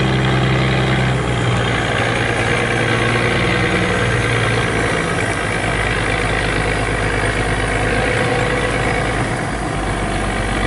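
Loaded river cargo barge's diesel engine running steadily as the barge pulls away from the landing; its low note shifts about a second in.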